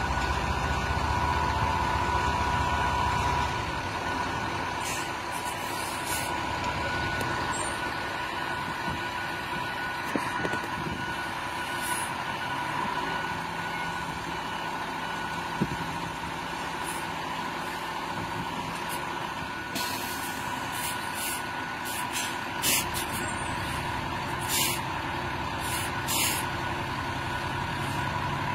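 Heavy military truck engines running as the trucks hold and winch an overturned armoured personnel carrier on cables, louder for the first few seconds. A steady high tone runs underneath, and several short hisses, like air-brake releases, come about two-thirds of the way through.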